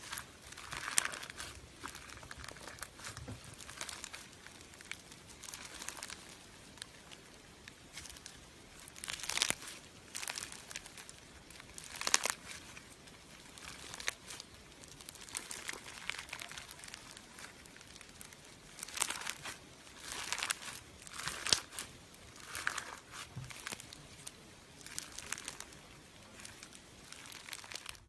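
Slime-making handling sounds: irregular crinkling and crackling, with scattered sharp clicks.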